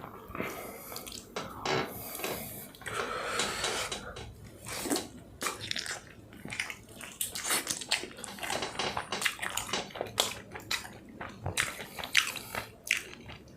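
A person biting into and chewing a malai chicken leg piece with the microphone close to the mouth: a run of short, irregular mouth clicks and smacks.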